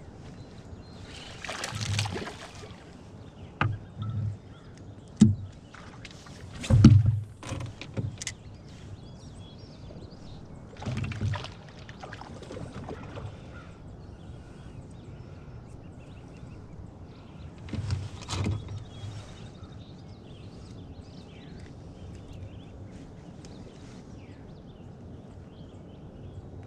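A canoe's hull knocked and bumped a few times, with short rushing, splashy noises at intervals.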